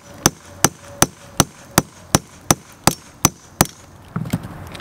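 Hammer striking a hammer-type lug crimper to crimp a lug onto a battery cable: ten sharp, evenly spaced blows, a little under three a second, that stop about three and a half seconds in.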